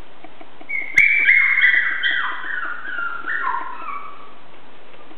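Eight-week-old Chihuahua puppy whining: a run of high cries that start sharply about a second in, step down in pitch and fade out about three seconds later.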